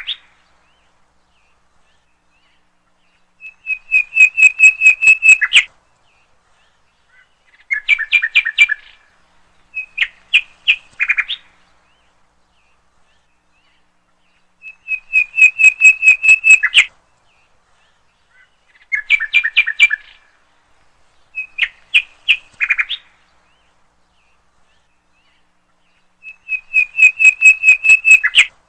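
Bird chirping in quick trilled bursts of one to two seconds, with short silences between them. The same sequence of phrases repeats about every eleven seconds.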